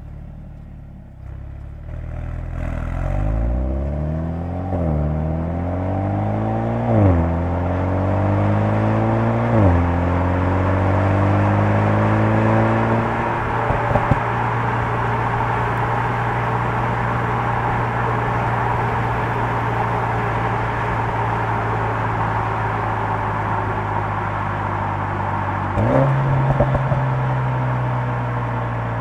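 Mercedes-AMG GLA 45's turbocharged four-cylinder heard from inside the cabin, pulling hard through the gears. The engine note rises and drops sharply with three quick upshifts in the first ten seconds, then settles into a steady cruise. Near the end a downshift brings the engine note up again.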